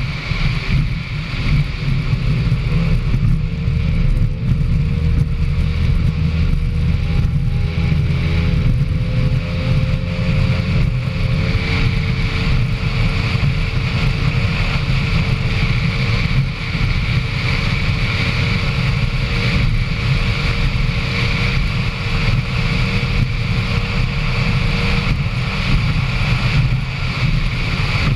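Single-seat racing powerboat running flat out, heard from on board: a steady engine whine that wavers and climbs slightly in the first ten seconds, then holds. Heavy wind buffeting on the microphone, with water rushing and spraying off the hull.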